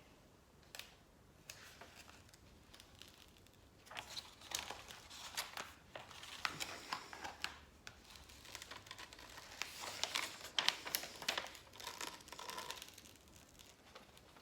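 Irregular crinkling and rustling of a diamond-painting canvas and its plastic cover being handled. It is sparse at first and grows busier about four seconds in.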